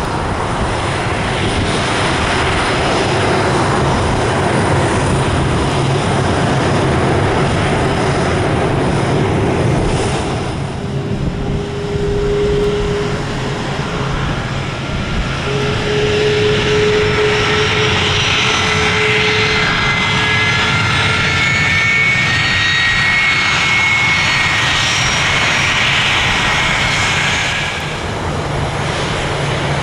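KC-135R Stratotanker's CFM56 (F108) turbofan engines running at taxi power as the tanker rolls past: a steady jet rush with whining tones. The sound dips briefly about ten seconds in and again near the end. Higher, slightly sliding whines stand out in the second half.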